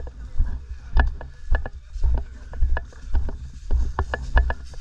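Footsteps at a walking pace, a dull thump about every half second, with short clicks and rattles of carried airsoft gear on each step.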